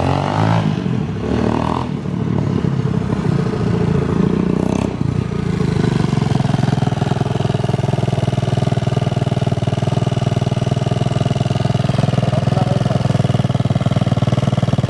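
A 200cc pitbike's single-cylinder engine, with a newly fitted cylinder and running on its old exhaust. It rises and falls unevenly for the first few seconds as the bike rides up, then settles to a steady idle from about five seconds in.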